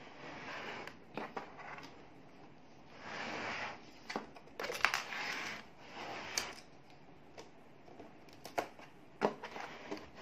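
A Lego model being turned by hand on a tabletop: its plastic baseplate scrapes and slides in several short rasping bursts, with scattered sharp plastic clicks and knocks.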